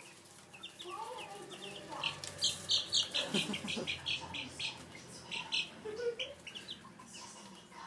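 Week-old baby chicks peeping, a busy run of short high peeps that is densest in the middle stretch.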